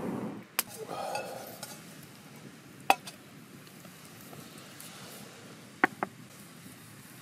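Air blown through a fire-blowing pipe into a small wood fire, stopping just after the start. Then a few sharp clinks and knocks of metal on wood as a metal mug and a can of tomatoes are set down on a wooden round, the last two knocks close together near the end.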